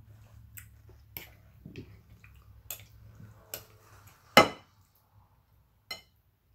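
Tableware clicking and tapping as someone eats at a plate: a string of small scattered clicks, with one sharp, louder knock about four and a half seconds in.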